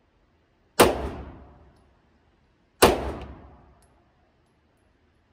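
Two pistol shots about two seconds apart, each a sharp crack followed by about a second of echo off the walls of an indoor shooting range.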